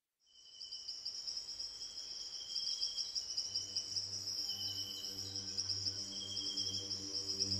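A steady, fast-pulsing cricket-like insect trill fades in at the opening of the track, with short repeated calls a little lower in pitch. About three and a half seconds in, a low sustained drone joins underneath.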